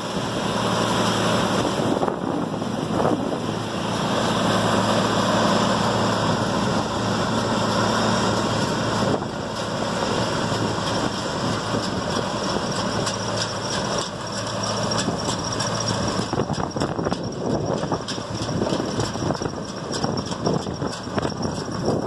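Gleaner C2 combine running in a soybean field, its engine and machinery giving a steady drone. About two-thirds of the way through, the steady hum weakens and a rougher, crackling noise takes over.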